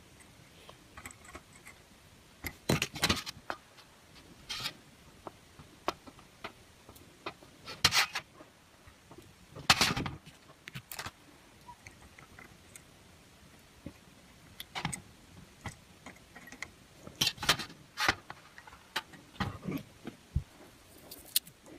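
Handling noise at a workbench: irregular small clicks, taps and scrapes as a soldering iron and its cord are moved and turned in the hand, the loudest cluster about halfway through.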